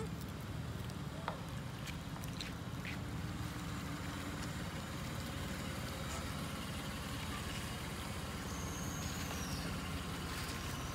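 Brief high squeals from a baby long-tailed macaque, twice near the start, over a steady low rumbling background.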